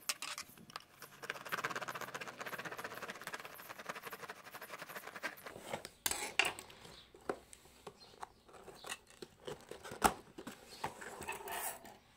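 Cardboard box being opened by hand. For about six seconds there is a fast scraping and tearing of cardboard as the tucked flap is worked loose. Then come scattered taps and knocks as the box is handled, with one sharper knock near the end.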